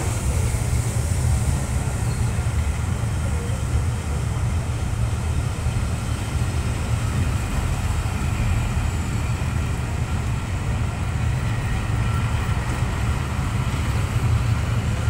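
Passenger coaches of a steam-hauled train rolling steadily past along the platform: a continuous low rumble of wheels on rail.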